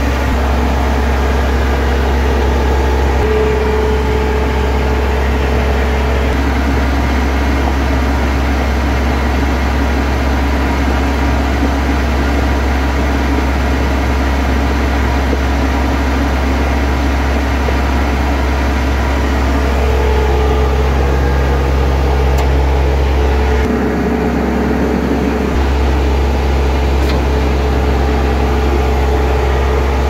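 Self-loading concrete mixer's diesel engine running steadily, heard from inside the cab, while the machine draws water into its tank. The low hum dips briefly about three-quarters of the way through.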